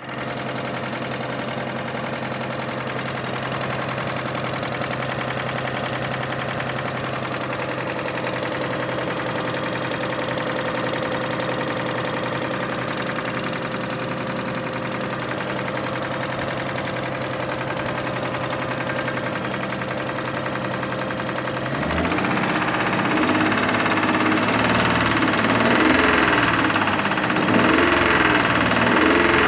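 2005 Kia Sorento engine idling steadily, then revved up and down several times from about three quarters of the way through. It carries an engine knock that the owner is trying to diagnose.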